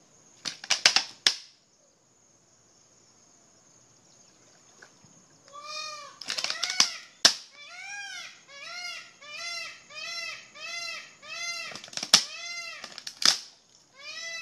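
Alligator crushing a turtle's shell in its jaws: several loud sharp cracks, a cluster about a second in and more later on. Over the second half an animal calls over and over, short rising-and-falling notes about one and a half a second.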